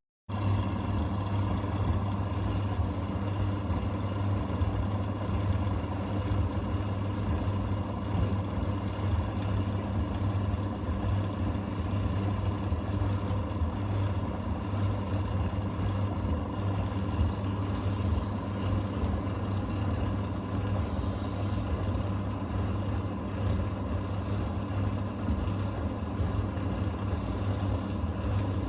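Thompson TD120 compact vented tumble dryer running: a steady, fairly loud motor hum with a constant higher tone above it.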